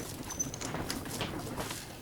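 Parts of an old Rival electric can opener being handled and pried apart: irregular light clicks, knocks and rattles of plastic and metal pieces.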